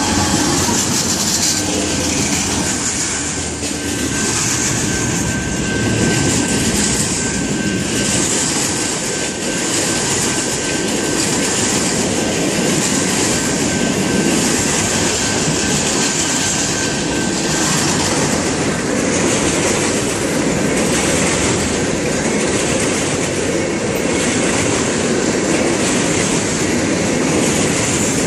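Freight train of covered hoppers and tank cars rolling past at close range, right behind BNSF diesel locomotives whose engine sound trails off in the first second. Steady wheel-on-rail rumble with a rhythmic clatter of wheels over the rail joints, and a faint thin wheel squeal through roughly the first half.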